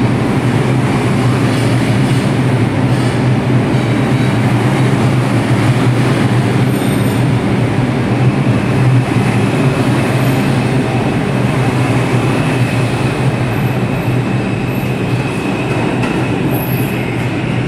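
R142 subway train running through the station at speed without stopping: a loud, steady rumble of wheels and cars on the track. A thin, high wheel squeal comes in about halfway. The noise eases slightly near the end as the last car passes.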